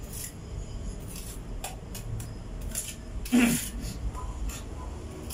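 Small mason's trowel scraping and tapping on fresh cement, a string of short light scrapes and clicks. About three and a half seconds in, a short loud call cuts across it.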